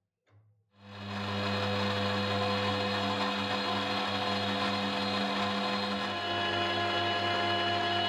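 Milling machine running, its face mill cutting across a gunmetal (bronze alloy) block: a steady motor hum with the hiss of the cut, starting about a second in, the pitch shifting slightly around six seconds in.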